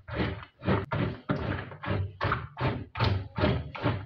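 Soaked beans being worked in a bowl in an even rhythm of strokes, about three a second, to rub their skins loose.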